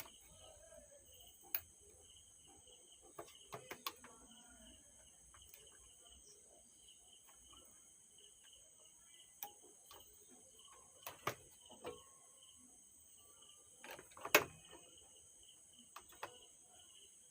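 Scattered light clicks and taps of resistors and small hand tools being handled as the resistors are fitted back into an amplifier circuit board, the loudest knock about 14 seconds in. A steady, pulsing chirp of crickets runs behind.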